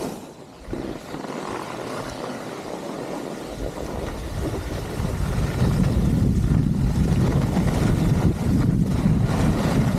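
Wind buffeting the microphone while skiing downhill: a rushing low rumble that grows much louder about five seconds in as speed builds.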